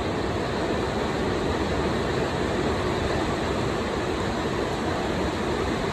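Steady, even rushing noise of a running fan, unchanging throughout.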